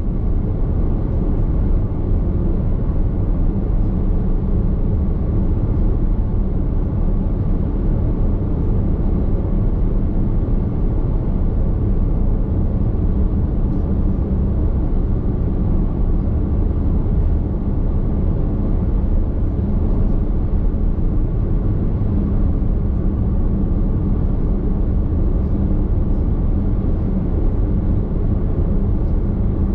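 Nissan X-Trail Hybrid cruising at expressway speed, heard from inside the cabin: a steady low road and tyre rumble that does not change.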